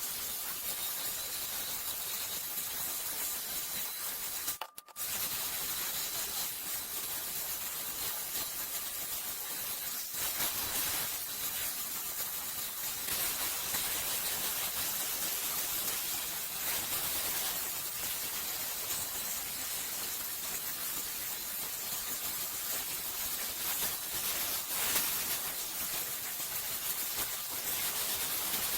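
One-step hair dryer brush running at a steady blow, a constant rush of hot air with a faint high whine from its motor in the first half. The sound cuts out for a moment about five seconds in.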